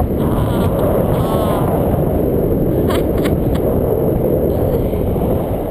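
Wind rushing over the microphone of a handheld camera in tandem paraglider flight, a steady loud low rush. A faint voice is heard under it briefly about a second in.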